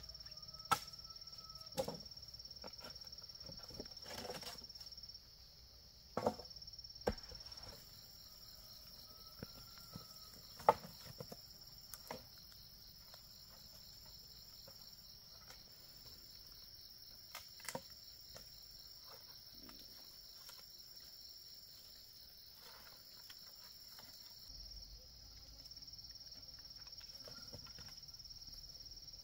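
Insects chirring in a steady, high-pitched drone, with a few scattered sharp knocks or clicks, the loudest about ten seconds in.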